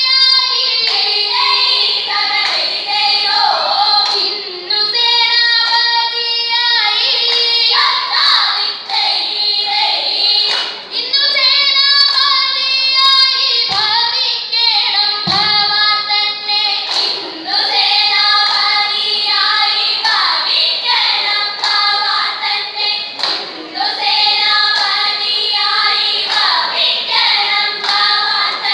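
Group of schoolgirls singing vanchipattu, the Kerala boat song, together on stage. Two dull thumps come about halfway through.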